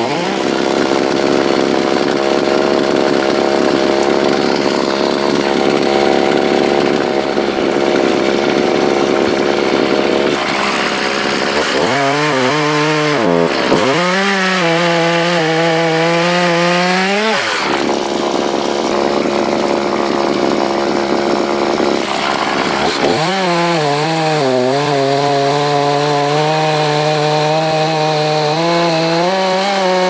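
Homelite two-stroke chainsaw cutting through a wild cherry log at full throttle. Its engine pitch dips and climbs back up twice, around the middle and again in the second half, as the load on the chain changes.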